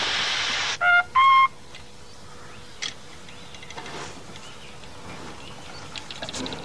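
Steam hissing from a replica Rocket steam locomotive cuts off under a second in. Two short signal blasts follow, the second a fifth higher than the first. After that only faint outdoor sounds remain.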